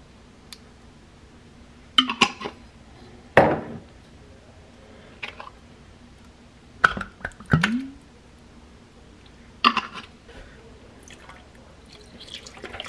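Thick salsa verde glugging and splatting out of an upturned glass bottle onto raw chicken in a slow cooker, in about half a dozen separate spurts. Near the end comes the handling of a carton of chicken broth as it is opened.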